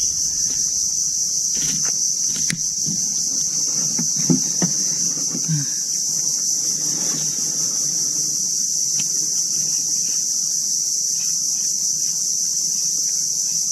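Steady, high-pitched chorus of insects, unbroken throughout, with a few faint clicks and knocks in the first half.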